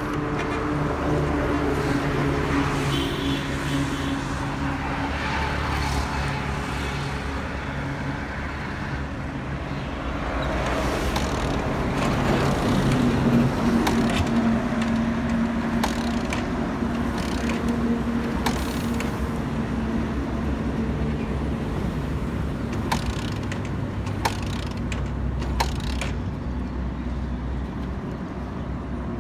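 Road traffic: motor vehicle engines running steadily, their hum shifting as vehicles come and go, with a few sharp clicks near the end.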